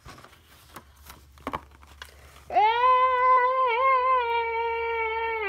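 Soft clicks and rustles, then, about two and a half seconds in, a child's voice holding one long, loud, high 'aaah' that wavers only slightly: a mock scream of fright.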